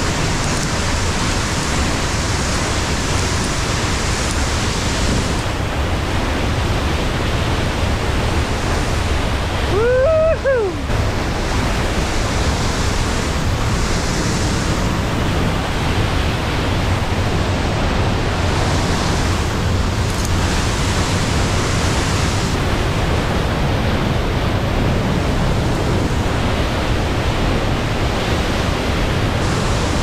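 A waterfall and white-water mountain torrent rushing close by: a loud, steady wash of falling water. About ten seconds in comes one short pitched sound that rises and then falls.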